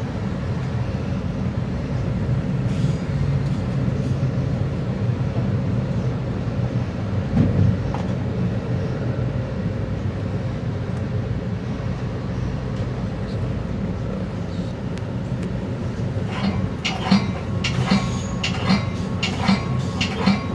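Metra bilevel commuter cab car running along the rails, a steady low rumble with a quick run of clicking and clattering from the wheels on the track over the last few seconds.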